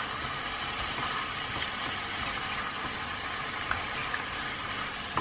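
Shredded cabbage and peas sizzling steadily in a nonstick frying pan as a spatula stirs them through, with a couple of light spatula taps near the end.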